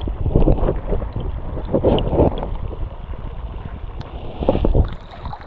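Stream water sloshing and gurgling around a camera held underwater, dull and muffled, with a few louder surges.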